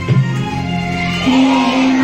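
Devotional music with singing, its notes held long; one note is held steadily through the second half.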